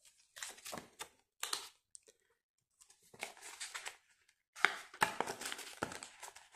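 Rustling and crinkling of paper euro banknotes and plastic binder sleeves being handled, in short bursts with a brief pause a little after two seconds in. A few sharper clicks come in the second half.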